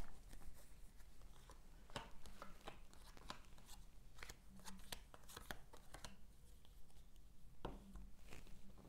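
A deck of playing cards being handled by hand: faint, irregular light clicks and snaps as the cards are shuffled and laid out.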